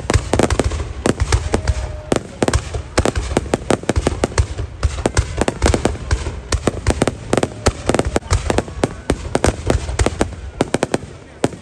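Fireworks going off in a rapid, continuous string of sharp bangs and cracks over a low rumble.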